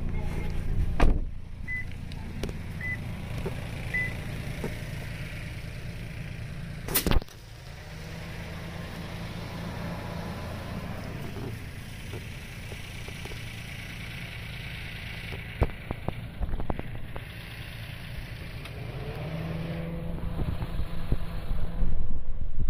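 Car engine idling with a low steady rumble. Three short electronic beeps about a second apart come near the start, and a single sharp knock about seven seconds in.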